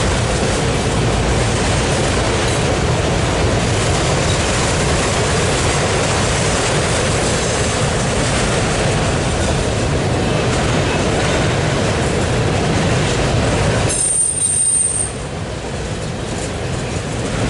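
Autorack freight cars of a passing freight train rolling by at steady speed, a continuous rumble and rush of steel wheels on rail. A brief high squeal comes near the end, and the sound drops for a moment after it before building back up.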